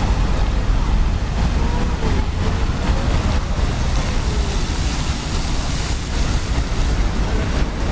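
Fountain jets spraying and splashing down into a shallow pool: a steady rush of falling water with a low rumble underneath. The hiss of the spray grows brighter for a couple of seconds around the middle as the jets shoot higher.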